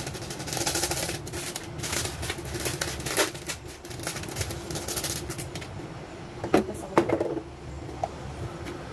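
Lumpia filling being mixed in a bowl: quick rustling and scraping, with a few sharp knocks against the bowl a little past the middle.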